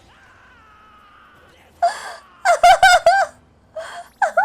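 A voice: after a quiet second and a half, a breathy gasp followed by a few short, quick exclaimed syllables, and another brief exclamation near the end.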